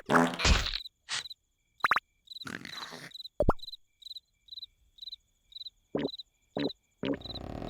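Cartoon sound effect of a cricket chirping steadily, about two to three short high chirps a second. Over it come a few short comic noises and brief whistle-like sweeps in the first half, and a steady rushing noise comes in near the end.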